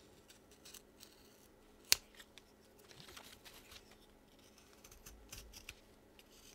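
Japanese Power Grip skew carving tool slicing into a block of wood: faint, crisp cutting and scraping strokes, with one sharp click about two seconds in.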